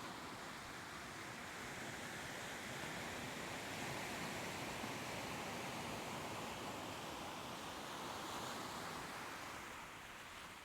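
Soft ocean waves washing in, a steady hiss with slow swells that eases off near the end.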